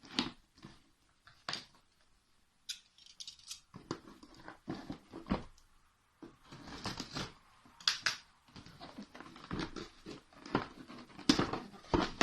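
Packaging being handled and unpacked: irregular rustling with scattered clicks and knocks of cardboard and plastic, with short pauses.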